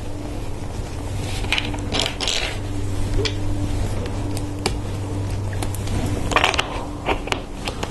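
Plastic LEGO Technic parts clicking and clattering as small pieces are pressed onto axles and pins and picked from a loose pile, with a denser rattle about six seconds in. A steady low hum runs underneath.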